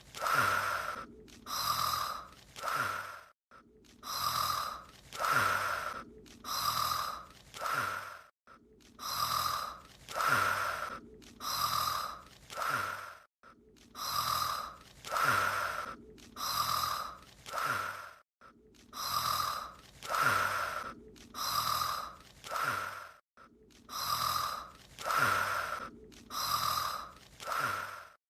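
An anime character's voiced snoring, played as a loop: a cycle of a few short in-and-out breath sounds that repeats about every five seconds, with a brief silent gap between cycles.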